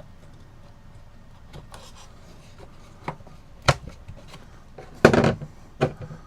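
Sharp wooden knocks and clicks from handling and seating a cuckoo clock bellows in the wooden clock case: a few single taps, then a louder cluster of knocks about five seconds in.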